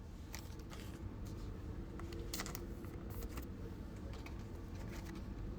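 Faint light clicks and rustles of trading cards being handled and flipped through, over a low steady room hum.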